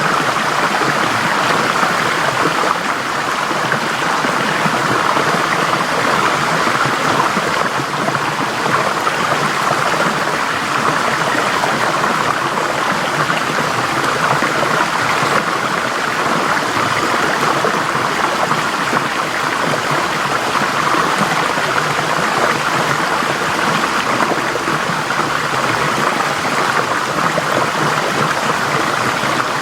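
Forest stream flowing in a steady, even rush of water.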